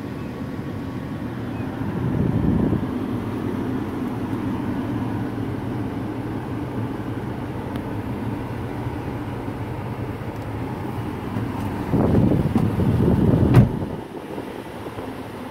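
Steady low rumble inside a Land Rover LR4's cabin, swelling briefly about two seconds in and again near the end, then dropping off suddenly.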